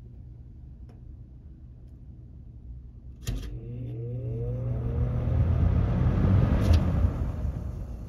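1981 Lakewood P-223 box fan started on medium speed: the switch clicks about three seconds in, then the motor hums and whines rising in pitch as the blades spin up, with the rush of moving air growing louder. A second click comes near the end, after which the sound dies down.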